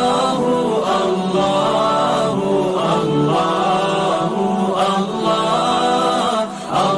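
Islamic devotional vocal chant (nasheed-style ringtone): long, held sung notes that bend slowly in pitch, over a steady low drone, with a brief break between phrases near the end.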